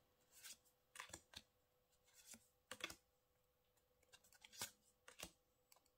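Faint taps and slides of tarot cards being shifted one behind another in the hands, a scattering of small clicks a fraction of a second to a second apart.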